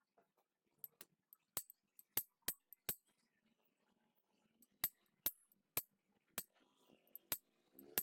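About a dozen sharp clicks at uneven intervals as a hand impact driver works on a stripped screw in a motorcycle disc-brake reservoir cap, with a faint rustle of handling near the end.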